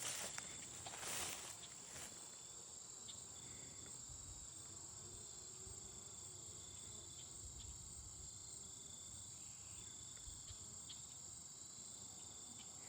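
Faint, steady high-pitched insect chorus, with a brief stretch of rustling in the first couple of seconds.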